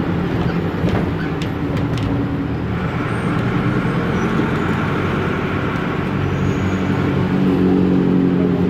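Otokar M-2000 minibus's noisy air-cooled Deutz F4L912 four-cylinder diesel running while the bus is under way, heard from inside the cabin. The engine note grows louder near the end, and a few light clicks come in the first couple of seconds.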